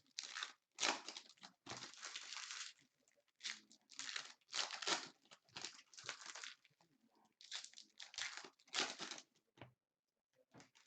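Trading-card packaging crinkling and tearing in irregular bursts as Prizm retail packs are opened by hand.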